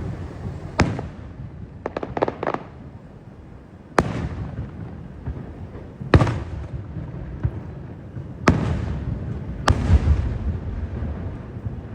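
Aerial fireworks shells bursting: five sharp booms spaced a couple of seconds apart, each followed by a low rolling echo, with a quick run of crackling reports about two seconds in.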